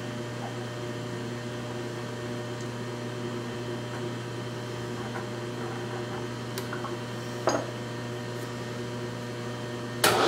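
Steady electric motor hum made of several fixed low pitches, with a light clink about seven and a half seconds in. A louder, steady machine noise switches on abruptly near the end.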